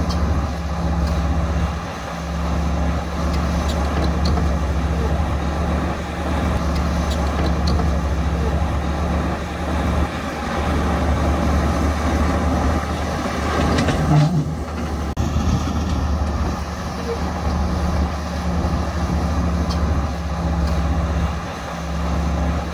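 Heavy earthmoving machine's diesel engine running steadily under load, its low drone dipping briefly a few times.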